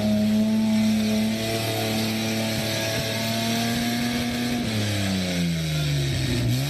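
Off-road SUV engine held at high revs under load while its wheels spin in deep mud. About five seconds in, the revs drop, then climb again near the end, over a steady hiss.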